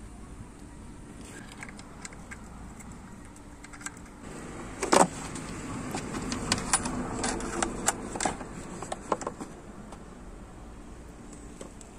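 Hand work on an automatic transmission: small metal clicks and clinks of loose bolts being handled. From about four seconds in comes a cloth rubbing over the oily transmission pan, with a sharp clink a second later and more scattered clinks while the wiping goes on.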